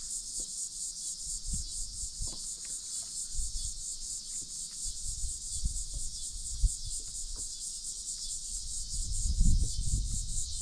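A steady, fast-pulsing high chorus of insects trilling. Scattered low knocks underneath, with a low rumble building near the end.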